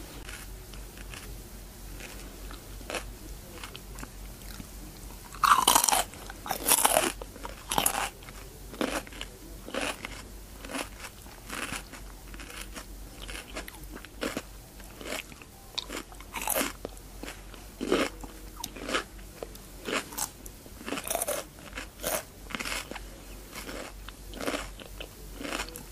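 A person biting into and chewing cucumber: loud crisp crunches of bites about six seconds in, then repeated crunching chews, roughly one or two a second.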